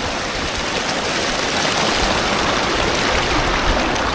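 Rushing creek water: a steady, even rush of white water.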